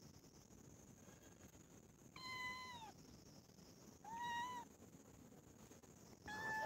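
A kitten meowing three times, short high calls about two seconds apart, the first dropping in pitch at its end.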